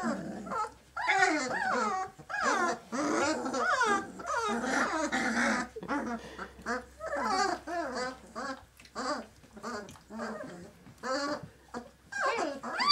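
A litter of 19-day-old Great Dane puppies crying and yelping as they play, many short rising and falling cries overlapping, with a louder falling cry near the end.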